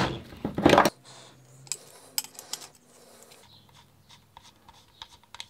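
Small metal clicks and scrapes of an adjustable spanner and locking grips working the front end off a Graco Cleanshot airless-sprayer shut-off valve. A sharp clack and a brief louder noise in the first second, then scattered light ticks and rubs.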